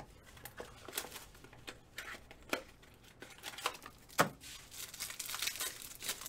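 Trading card pack wrappers crinkling and tearing as packs are opened, with irregular crackles and a sharp snap about four seconds in.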